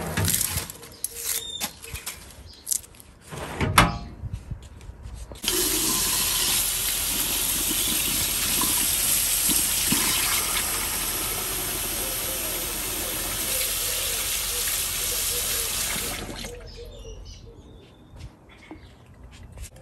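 A faucet running into a stainless steel sink as a peeled onion is rinsed under the stream, starting abruptly about five seconds in and shut off about eleven seconds later. Before it come a few knocks and clatters.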